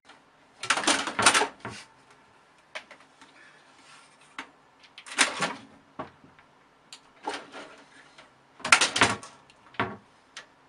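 Irregular knocks and clatters of household objects in a small room, coming in clusters about a second in, about five seconds in and near nine seconds, with quiet between them.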